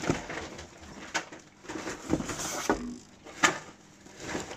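Objects being handled and gathered up: several sharp knocks with rustling between them.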